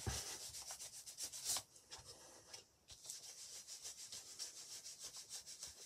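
Ink blending tool rubbed over paper in quick, short strokes, working Vintage Photo Distress ink into the paper to age it. Faint, even rubbing that stops briefly about two seconds in, then carries on.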